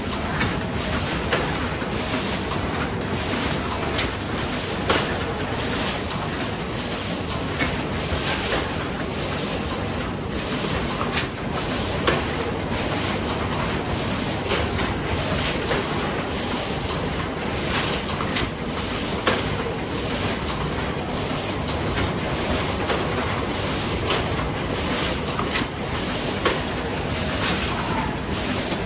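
Cornetto cone filling line running: steady machine noise with frequent irregular metallic clacks from the carrier plates and cone holders, and short hisses of compressed air from the pneumatic dosing gear.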